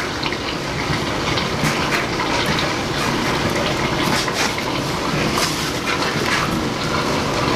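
A steady rushing noise, with scattered light clicks and scrapes as a PVC toilet flange is turned and pressed down onto the drain pipe.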